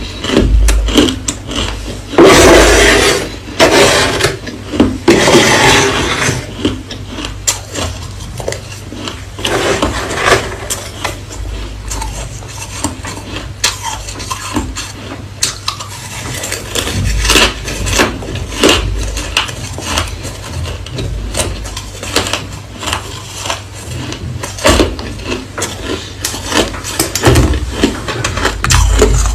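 Close-up crunching of hard crushed ice being chewed: a dense run of sharp cracks, loudest in two bursts about two and five seconds in.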